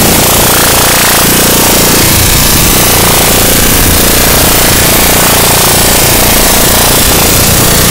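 Harsh noise music: a loud, dense, unbroken wall of distorted noise filling the whole range from deep bass to hiss, with a churning, shifting low end.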